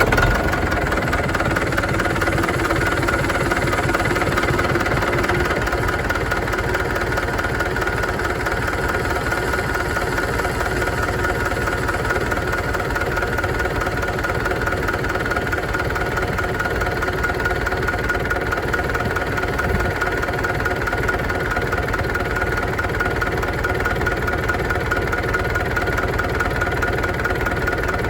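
UTB U650 tractor's four-cylinder diesel engine idling steadily just after starting, running on freshly changed oil.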